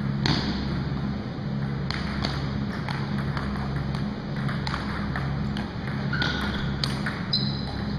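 Scattered sharp clicks of a table-tennis ball tapping on the table, paddle and floor in a large hall, with a couple of short squeaks in the last two seconds, over a steady low hum.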